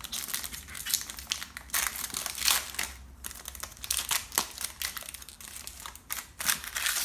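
Plastic wrapper of a trading-card pack crinkling as it is torn open and handled, a dense, irregular crackle.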